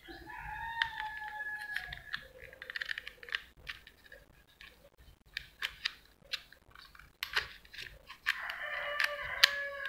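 A rooster crowing twice in the background, once near the start and again near the end, the second call falling away at its close. Scattered sharp clicks come from a cordless drill and its battery pack being handled, with the recessed battery terminals pressed by hand.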